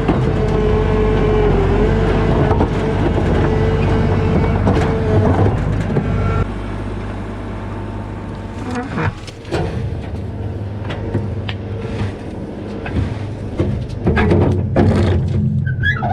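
Skid steer loader engine working hard, with a steady whine over it. It eases down about six seconds in, followed by scattered clanks and knocks, the loudest near the end.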